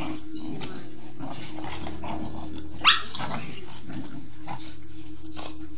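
Pit bull puppies play-fighting, growling and scuffling, with one sharp bark about three seconds in.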